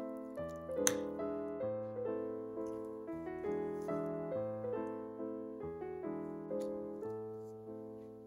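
Gentle background piano music playing a slow melody over chords, with one short sharp click about a second in.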